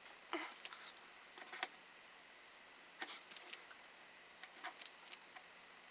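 Light clicks and scrapes of a hard plastic container ring being turned and handled, in four short clusters a second or so apart.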